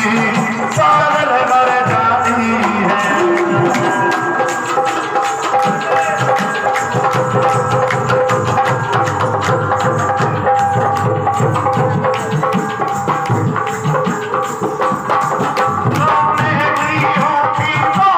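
Live devotional folk music, mostly instrumental: a hand drum plays a fast, dense rhythm under a steady held melody line.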